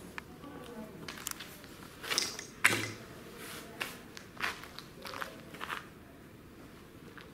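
Irregular crunches and clicks of grit and debris on a concrete floor, from footsteps and a dusty fabric banner being moved about. The loudest crunch comes about two and a half seconds in.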